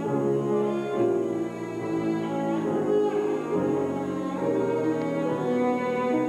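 Cello bowing a sustained melody in a classical piece with grand piano accompaniment, the notes changing about once a second.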